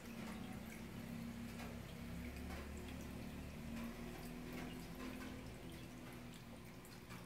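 Aquarium filter running: faint water trickling and dripping over a steady low pump hum.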